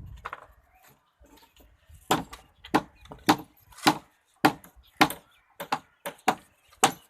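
Steady hammering: sharp blows about every 0.6 seconds, beginning about two seconds in.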